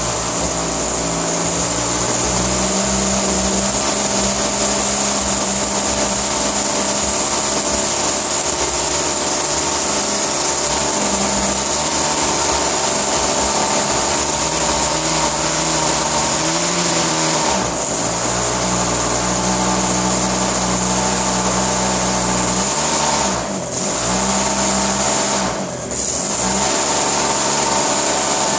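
ASP 56 model aircraft glow engine with propeller running steadily at high speed on a test bench, its first run-in, set rich so that a lot of fuel comes out of the exhaust. Its speed sags briefly about two-thirds of the way in and twice more near the end.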